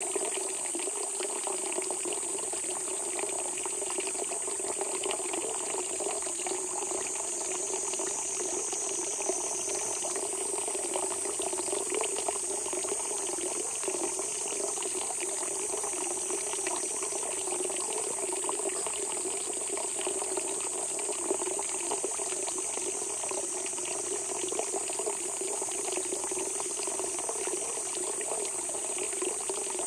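Spring water gushing steadily out of the ground, a continuous burbling rush. A steady high-pitched whine sits above it.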